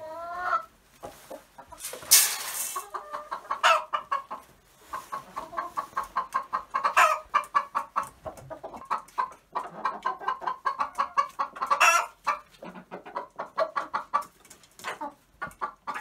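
Chickens clucking in quick, busy runs, broken by a few louder squawks, the loudest about two seconds in.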